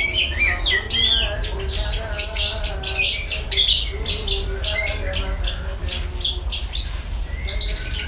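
Javan bush lark (branjangan) singing a rapid, nearly unbroken song of short, varied high chirps and trills.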